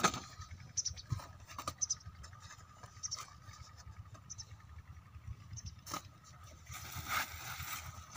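Flat plastic lay-flat pipe scraping and slapping on sandy ground as it is unrolled, with footsteps in sand: irregular soft scrapes and taps, the sharpest right at the start and another about six seconds in.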